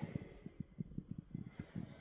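Faint, irregular soft clicks and taps, several a second.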